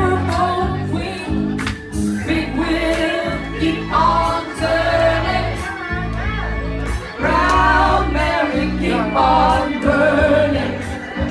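Loud music with a steady bass line and singing.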